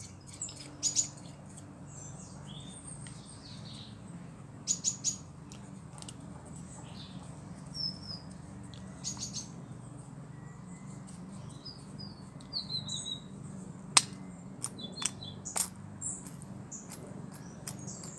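Sharp metallic clicks and taps, some in quick runs of two or three, from Remington 700 bolt parts and a bolt stripdown tool being handled. Short high bird chirps and a steady low hum sound behind them.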